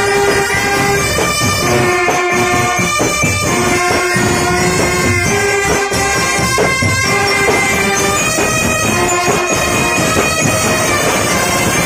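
Marching band brass section of trumpets and larger horns playing a tune in long held notes, with sharp percussion strikes underneath.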